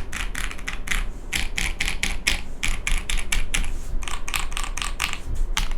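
Typing on a custom mechanical keyboard with lubed switches: a fast, even run of key strokes, several a second.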